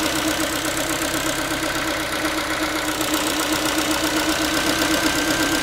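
Ford Focus 3's 1.6-litre (125 hp) four-cylinder petrol engine idling steadily after a cold start, with a fast mechanical knock: a tinny, saucepan-like metallic rattle whose cause the owner cannot identify.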